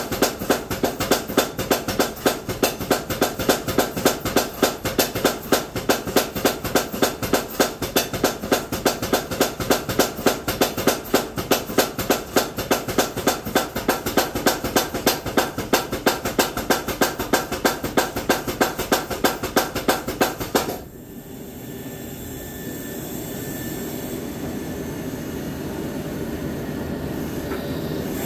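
Rapid, even hammer blows on hot steel, about four a second, stopping suddenly about 21 seconds in. A steady rushing noise follows, slowly getting louder.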